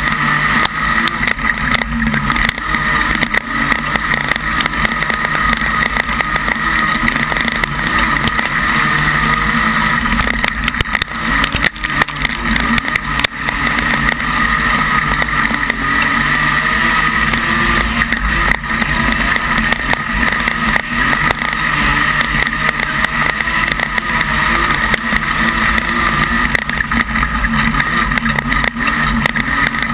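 Modified production speedway car's engine running hard under race load, heard loud and steady from inside the car with wind noise on the microphone. The level dips briefly a few times near the middle.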